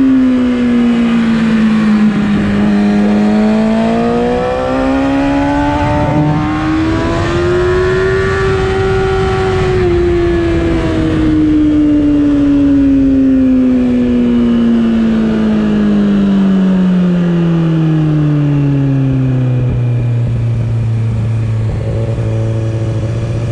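Onboard motorcycle engine, pitch dipping then climbing to a peak about nine seconds in, then falling steadily as the bike slows and settling to a steady low note for the last few seconds, with wind rush underneath.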